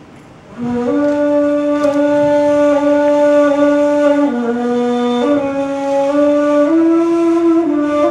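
A ney, the end-blown cane flute, plays a slow melody of long held notes. It comes in about half a second in, dips lower around the middle, then steps back up higher toward the end.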